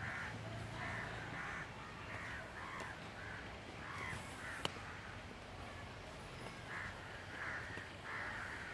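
Crows cawing, a steady run of short harsh calls about twice a second, with one sharp click a little past the middle.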